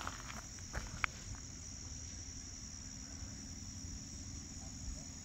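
Steady high-pitched chorus of summer insects, with a low rumble underneath and a single sharp click about a second in.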